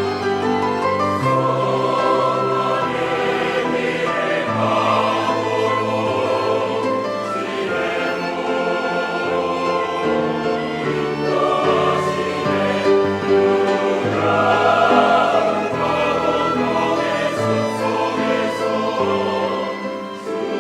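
Church choir singing a hymn anthem in parts, with long held chords that change every second or two.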